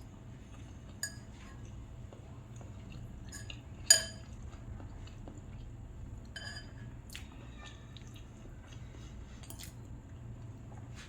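Cutlery clinking against a dish while eating noodles: a few short, scattered clicks, the loudest about four seconds in, over a faint steady hum.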